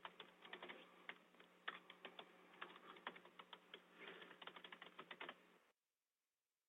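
Computer keyboard typing heard over a telephone line: quick, irregular key clicks with a faint steady hum beneath, stopping about a second before the end.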